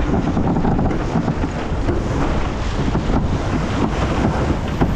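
Wind buffeting the microphone over the steady rush of water along the hull of a Farr 280 racing sailboat under way at about six and a half knots.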